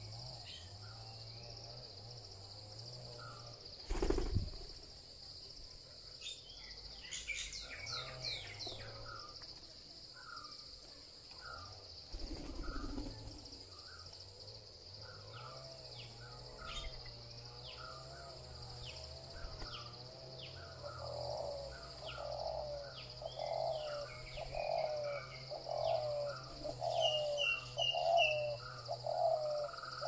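Birds calling, with short notes repeated about once a second; from about twenty seconds in, a louder call repeats about once a second and grows stronger. A steady high insect drone runs underneath, and a sharp knock comes about four seconds in.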